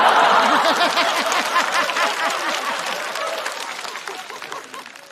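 Studio audience laughing and applauding after a punchline, loudest at the start and dying away over several seconds.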